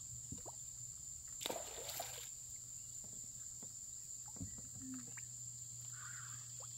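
A steady, high-pitched insect chorus drones throughout, with a short noisy rustle about one and a half seconds in and a few faint ticks.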